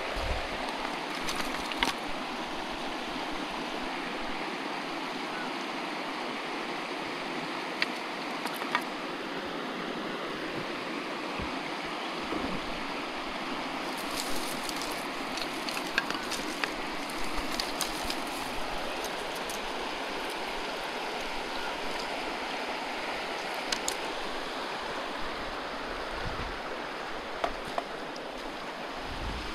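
Steady rushing of a river flowing close by, with scattered short sharp clicks over it.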